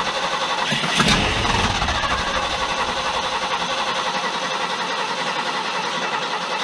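The 390 V8 of a 1974 Ford F-350 running at idle, fed with gasoline poured from a can straight into the carburetor, its exhaust pulsing evenly. It gives a brief louder burst about a second in.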